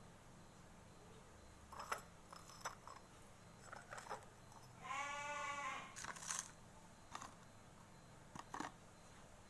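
A young child's short whiny vocal sound, one held note of under a second near the middle, among a few scattered sharp clicks and taps.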